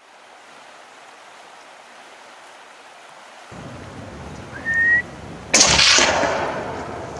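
A short rising whistle, then about half a second later a single hunting-rifle shot that echoes away over about a second and a half.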